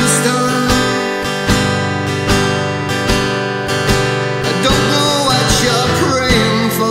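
Tonk Bros acoustic parlour guitar strummed in a steady rhythm, about one stroke every three-quarters of a second, chords ringing between strokes.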